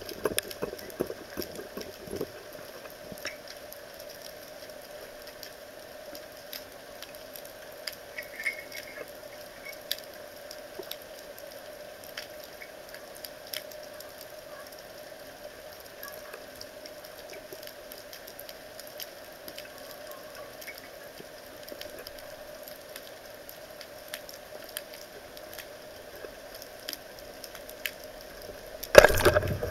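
Underwater sound heard by a diver's camera: a steady faint hum with scattered small clicks and crackles. Near the end comes a sudden loud burst, a band-powered speargun being fired.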